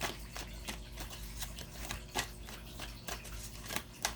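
Tarot cards being handled and shuffled: a run of soft, irregular clicks and snaps, two to four a second, over a steady low hum.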